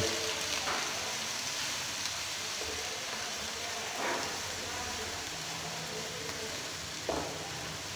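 Onions and ginger-garlic paste sizzling steadily in hot oil in a wok, stirred with a wooden spoon that scrapes the pan briefly about four seconds in and again near the end.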